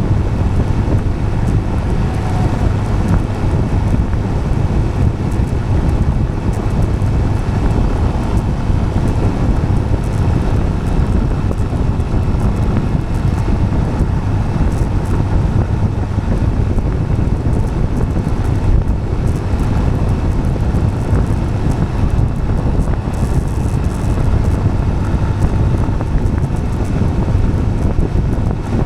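Wind buffeting the microphone over a steady low rumble of tyres rolling on asphalt, unbroken and even in level.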